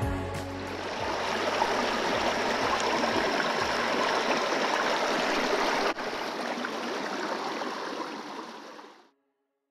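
Molweni River's shallow stream rushing and splashing over rock shelves and small cascades, a steady rush of water. It breaks off for an instant about six seconds in, then fades out near the end.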